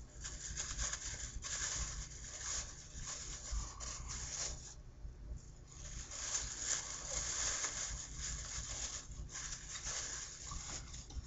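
Thin plastic bag rustling and crinkling as it is handled and unwrapped from engine parts, in irregular stretches with a brief lull about five seconds in.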